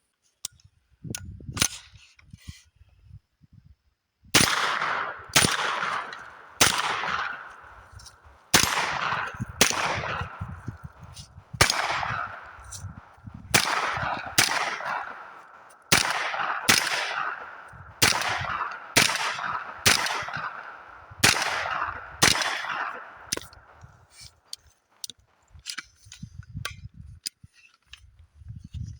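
Bear Creek Arsenal BC9 9mm carbine fired in a long steady string of about fifteen or more shots, roughly one a second, each with a ringing echo. A few faint clicks come before and after the string.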